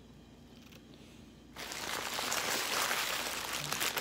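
Subway sandwich paper wrapper crinkling as it is handled, starting suddenly about a second and a half in after a quiet moment.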